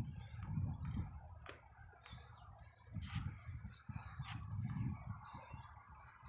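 Wind buffeting the microphone of a bicycle-mounted camera in uneven gusts, with birds chirping repeatedly in the trees and a couple of sharp clicks.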